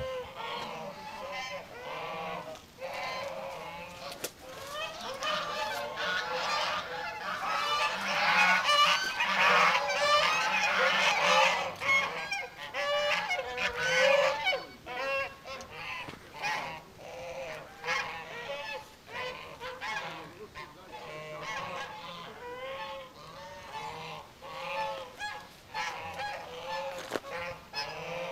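A flock of geese honking, many short calls overlapping, loudest and busiest in the middle.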